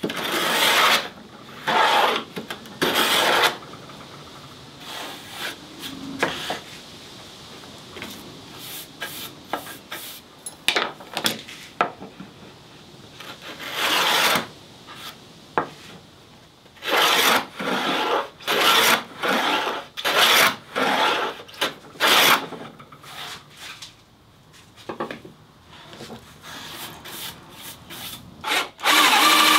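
A hand tool rubbed back and forth over a wooden board in short scraping strokes, about one a second, coming in several runs with fainter scratching between.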